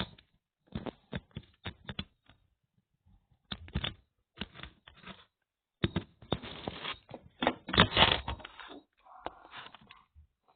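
Irregular tapping, clicking and rustling of objects being handled, loudest about six to eight seconds in.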